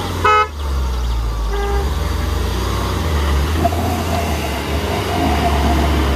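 SUV engine running hard under load as a Mahindra Scorpio pulls a Bolero stuck in sand on a tow rope. A short, loud car horn honk comes near the start and a shorter, weaker one about a second and a half in.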